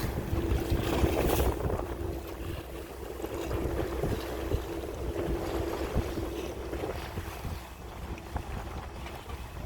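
Wind buffeting the microphone with a low rumble. A steady hum runs underneath for the first several seconds, then fades.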